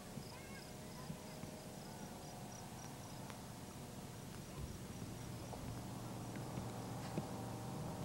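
Faint outdoor ambience: an insect chirping in a thin, high, evenly pulsed tone, about three pulses a second, over a low steady hum.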